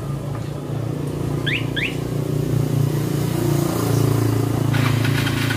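A motor vehicle engine running with a steady low drone that swells about four seconds in. Two short rising chirps come about a second and a half in.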